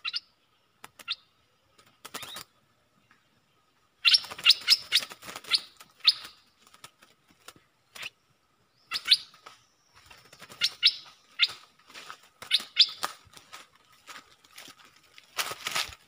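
Bulbuls giving short, sharp chirps, mostly in quick runs of four or five with pauses between, the loudest cluster near the end.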